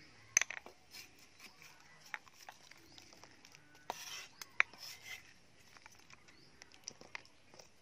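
A steel cleaver tapping and knocking irregularly on a round wooden chopping board as vegetables are cut. There is a brief scraping sound about four seconds in.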